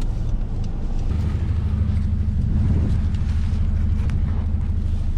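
Car driving slowly through snow: a steady low rumble of engine and road noise that grows stronger about a second in.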